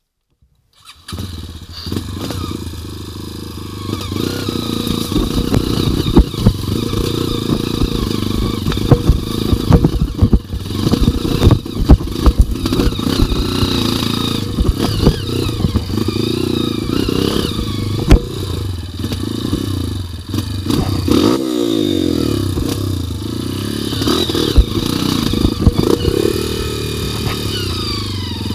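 Dirt bike engine running while the bike climbs a rocky trail, with frequent knocks and clatter as it rides over rocks. About three quarters of the way through, the revs drop and pick up again.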